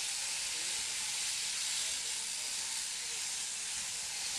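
Electric sheep-shearing handpieces running continuously while cutting through fleece: a steady high-pitched whirring noise.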